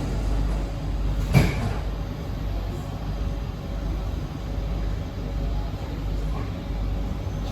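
Steady low rumble of a C151B MRT train running, heard from inside the carriage, with a single sharp knock about one and a half seconds in.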